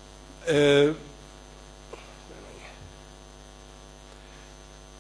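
Steady electrical mains hum on the lecture hall's microphone line, with one short voiced sound from the man at the microphone, a hesitation of under half a second, about half a second in.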